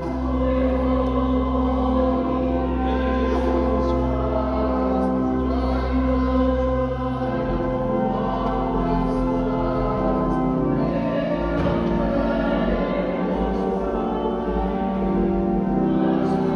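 Hymn music: voices singing over long held chords that change every few seconds.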